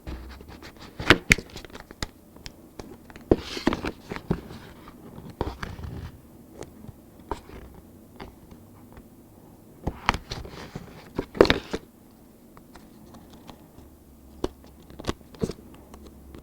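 Paper and adhesive pads being handled: sticky pads peeled from their backing and pressed onto the corners of a paper-wrapped display board. Scattered short crackles, rustles and taps, with louder taps about a second in and around ten and eleven seconds in.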